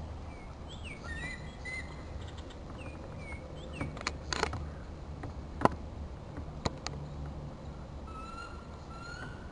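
Birds chirping and whistling from the riverside, short calls at first and a run of rising whistled notes near the end. A few sharp knocks come around the middle, the loudest about halfway through.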